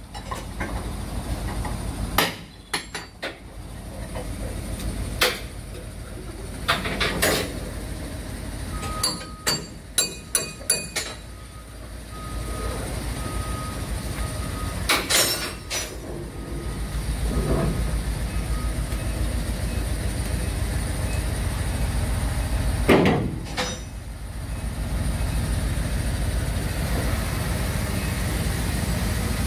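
Scattered sharp metal clanks and knocks from work on a train carriage's bogie and underframe, with a quick run of them about ten seconds in, over a steady low machine rumble. A faint, evenly repeated beep sounds between about nine and fifteen seconds in.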